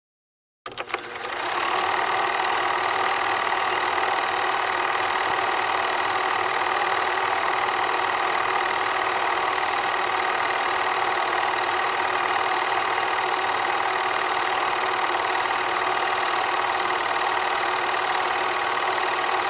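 Film projector running: a steady mechanical clatter that starts about a second in and holds even throughout.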